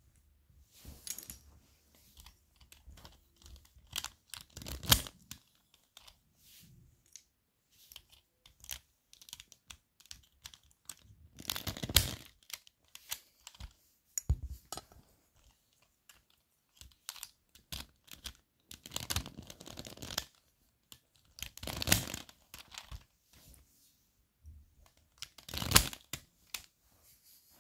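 Plastic pieces of a Pyraminx puzzle clicking and clattering as it is handled, in irregular bursts a few seconds apart.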